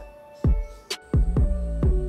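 Background music with a steady drum beat and held notes.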